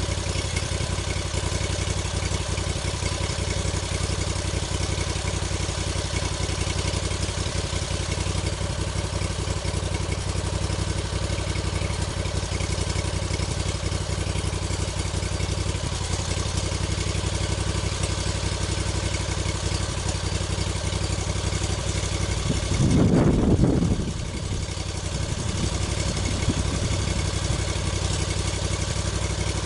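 Engine running steadily at an even speed, with one louder, deeper surge lasting about a second roughly three-quarters of the way through.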